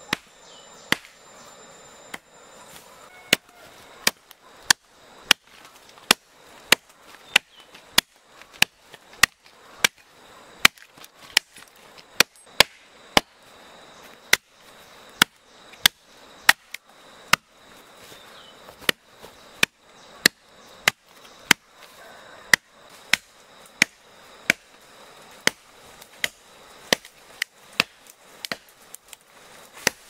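Machete chopping into the trunk of a small standing tree, cutting a felling notch. Sharp wooden chops in a steady rhythm, about three every two seconds.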